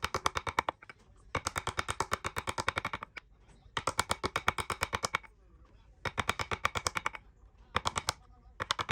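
Rapid strikes of a woodworking tool on wood, about ten a second, in bursts of one to one and a half seconds with short pauses between. Each strike rings at the same pitch.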